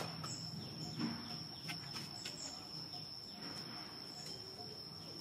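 Outdoor ambience: a steady high-pitched insect drone with short bird chirps above it and a few sharp clicks, the loudest right at the start.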